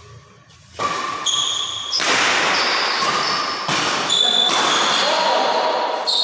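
Badminton rally in a large hall: players' shoes squeaking sharply on the court floor several times, over a loud rushing noise.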